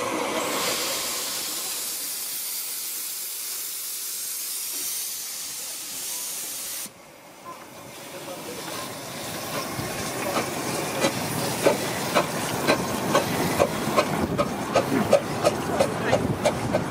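Miniature 15-inch-gauge steam locomotive hissing steam, which cuts off suddenly about seven seconds in. Its exhaust beats then come in, getting louder and quicker, as it moves off.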